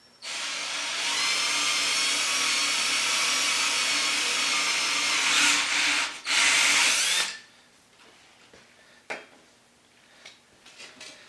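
Electric drill driving a wire stripping machine through its crank adapter, running steadily for about seven seconds with a brief stop and restart near the end, as the stripper cuts the jacket off a trailer-plug cable. A single click follows a couple of seconds later.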